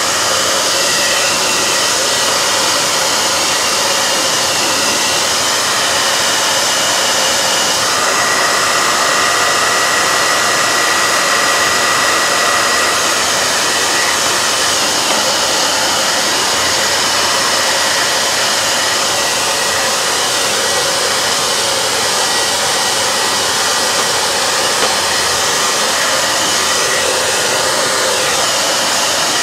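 Handheld hair dryer running steadily, blowing over wet watercolour paint to dry it: a constant rush of air with a thin steady whine that grows stronger for a few seconds about a third of the way in.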